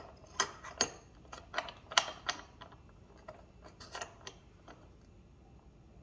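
Irregular small metal clicks and taps as a pocket-knife blade is fitted and positioned in an aluminium clamp fixture. The clicks come about every half second, the sharpest about two seconds in, and they thin out after about four and a half seconds.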